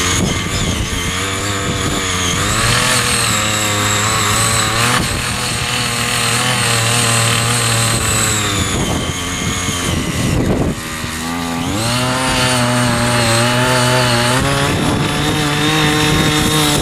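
Small petrol engine of a mini power tiller (cultivator) running hard; its speed sags and picks up again about three seconds in, and sags more deeply around nine to ten seconds before climbing back about a second later.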